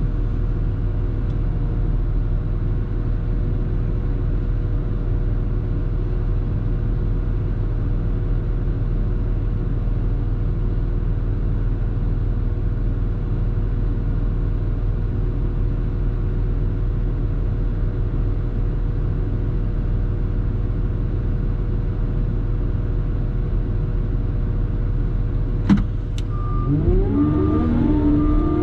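CAT loader's diesel engine running steadily, a constant drone with a held whine. Near the end there is a single sharp click, and then a voice and a short repeated beep come in.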